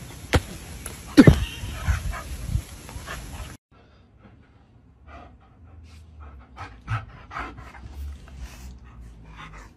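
A dog gives one loud, falling bark about a second in, then a dog pants in short, quick breaths.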